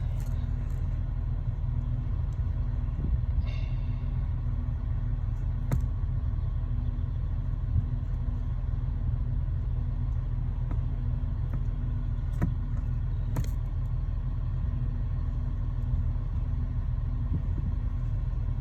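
Lada Largus engine idling with a steady low rumble, heard from the cabin, with a few faint clicks. The clutch pedal, its bushings freshly greased, makes no squeak.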